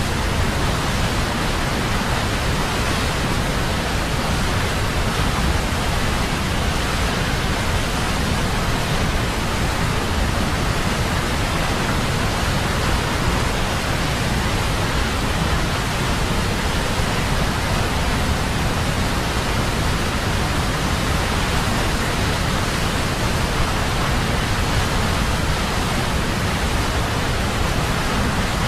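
Steady, unbroken rushing noise of heavy water, even in level throughout.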